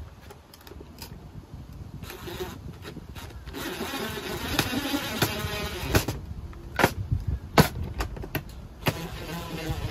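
Cordless DeWalt drill/driver driving a screw into a junction box. The motor runs in spurts from about a third of the way in, with a few sharp clicks between runs.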